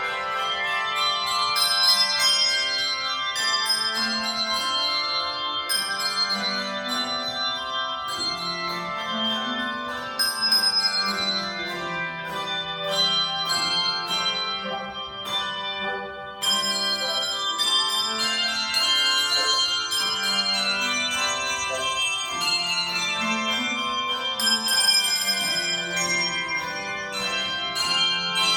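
Handbells ringing a tune: many pitched notes struck and left to ring over one another, with a brief lull about halfway through.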